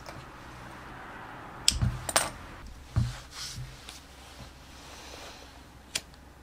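A few sharp knocks and clinks of small hard objects handled on a worktable, one of them ringing briefly like metal about two seconds in, with faint rustling in between.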